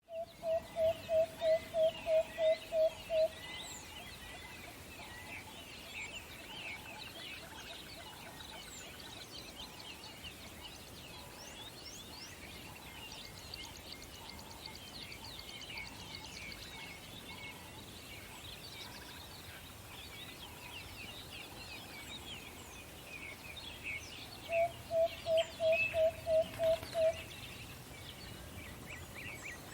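An owl gives a rapid run of about ten short, even hoots on one low pitch at the start, and a second run of about eight near the end. High twittering from many small songbirds goes on throughout.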